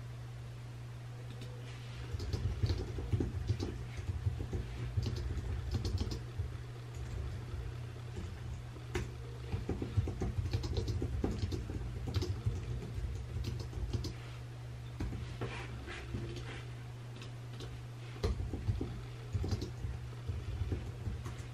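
Pen writing on paper at a desk: quick scratchy strokes and small ticks that start about two seconds in and go on with short pauses, over a steady low hum.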